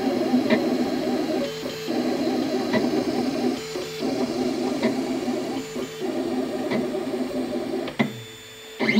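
Ultimaker 2 3D printer's stepper motors buzzing in quick, fluttering runs as the print head works back and forth over the last of the print, with three short pauses where a steady hum holds. Near the end there is a click, and then the sound drops away to quiet.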